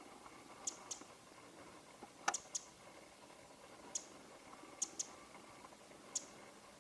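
Winter wren (Troglodytes troglodytes) giving its sharp, dry call notes: about nine clicks, some single and some in quick pairs or threes, with the loudest burst a little over two seconds in.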